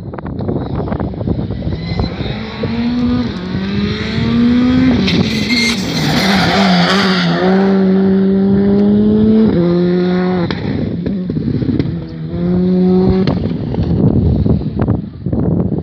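Skoda Fabia R5 rally car's turbocharged four-cylinder engine driven hard around the circuit, its note climbing through the revs and stepping at each gear change. It is loudest about six seconds in as the car passes closest, with wind rumbling on the microphone.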